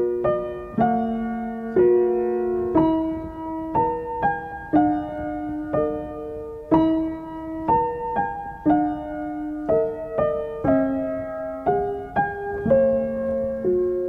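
Background piano music: a slow, gentle melody of struck notes and chords, about one a second, each fading away.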